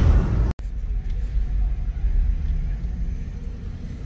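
Car driving slowly: a steady low rumble that fades gently. A brief dropout breaks it about half a second in.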